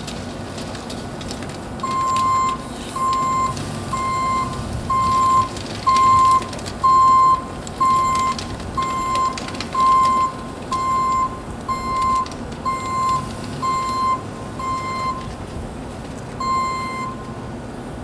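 Backup alarm of a hi-rail pickup truck beeping about once a second, one steady tone, as the truck reverses on the track, with its engine running underneath. The beeps stop near the end, and one last beep comes after a short pause.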